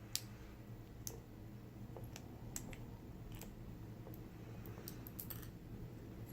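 Faint, scattered small clicks from a round-body padlock being handled and worked with tools, with a quick run of clicks about five seconds in.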